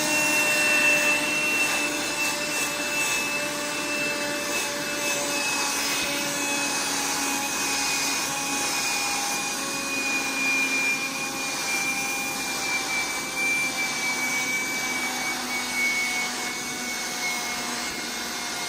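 BLACK+DECKER dustbuster QuickClean cordless handheld vacuum running steadily while vacuuming a bathroom mat: a high motor whine over rushing air, the whine sinking slowly in pitch.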